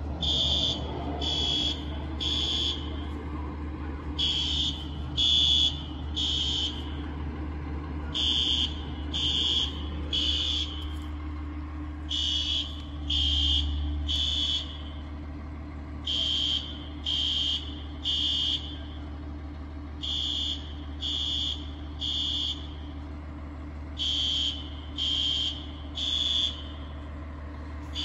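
Building fire alarm sounding the temporal-three evacuation signal: high electronic beeps in sets of three, a new set about every four seconds, over a steady low hum.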